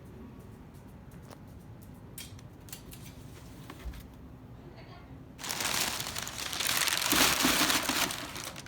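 A few faint clicks and taps, then about five and a half seconds in, loud crinkling and crumpling of packing paper starts and keeps going.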